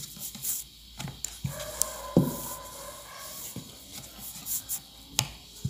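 Hands handling a rolled-out disc of wheat-and-jaggery dough on a wooden board: soft rubbing with a few sharp knocks of wood on wood, the loudest about two seconds in and again near the end.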